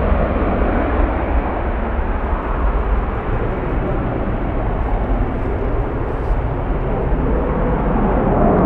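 Turbofan engines of an Airbus A320-family twin-jet airliner at takeoff thrust, as it lifts off and climbs away. A steady, loud engine noise that grows slightly louder near the end.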